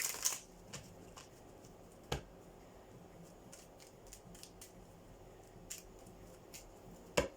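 A deck of oracle cards being handled: a short rustle at the start, then scattered soft clicks and taps, with sharper clicks about two seconds in and near the end.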